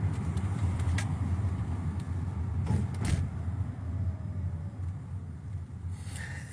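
Car driving slowly, heard from inside the cabin: a steady low engine and road rumble, with a couple of faint clicks about a second and three seconds in.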